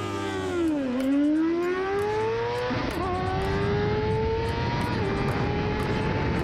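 A vehicle engine revving under acceleration. Its pitch dips about a second in, then climbs steadily, with small drops about three and five seconds in.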